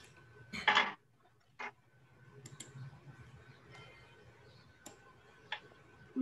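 A few sharp clicks and a short burst of noise about a second in, with a smaller one soon after, over a faint steady hum and a thin steady whine, heard through video-call audio.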